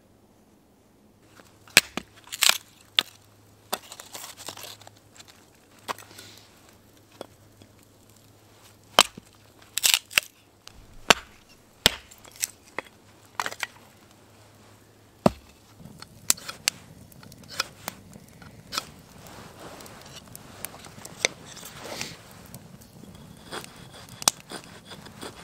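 Split firewood being handled and laid at a campfire: irregular sharp knocks, snaps and crunches, some in quick clusters. About two-thirds of the way in, a faint steady hiss joins them.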